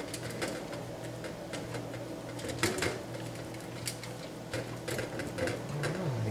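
Plastic-gloved hands pressing mashed potatoes into a pumpkin sitting on crumpled aluminium foil: scattered soft crinkles and rustles of glove and foil, heaviest about two and a half seconds in and again near five seconds, over a steady low hum.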